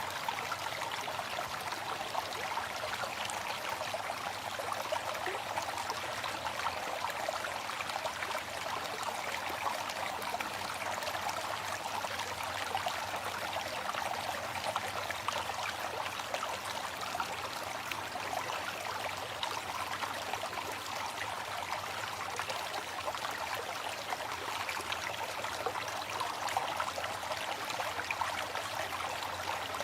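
Waterfall: water falling and splashing continuously, a steady rushing hiss with fine splashy texture, weak in the bass.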